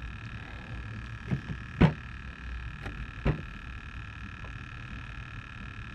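Steady low hum with a high whine of several steady tones, from the boat's electric trolling motor holding position. A few short sharp knocks cut through it, the loudest about two seconds in.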